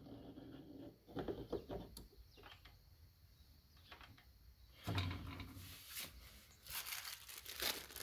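Faint rustling, scraping and light knocks of hands handling engine parts during reassembly, with a duller knock about five seconds in.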